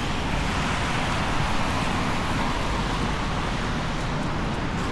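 Steady downtown street traffic noise: a continuous hiss of passing vehicles.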